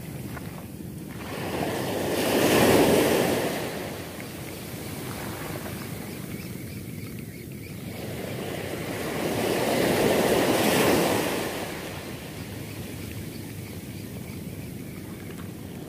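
Ocean surf breaking and washing up a sand beach: a steady wash of water that swells into a loud rush twice, about three seconds in and again about ten seconds in.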